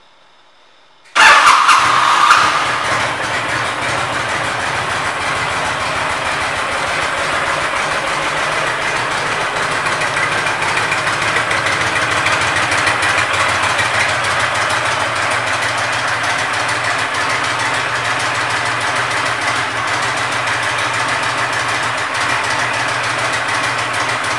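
A 2004 Honda VTX 1300C's V-twin engine starts about a second in. It is loudest for a second or so after catching, then settles into a steady idle.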